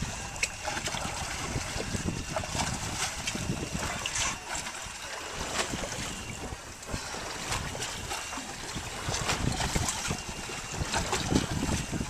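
Wind buffeting the microphone over water lapping against a small fishing boat's hull, with scattered light knocks and clicks.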